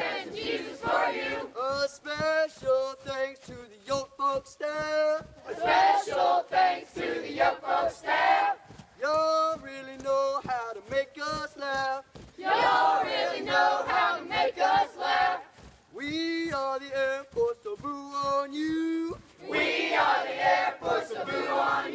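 A group of young men and women singing a boot-camp marching cadence together in rhythmic sung phrases, with passages of a few clear voices alternating every few seconds with the fuller group.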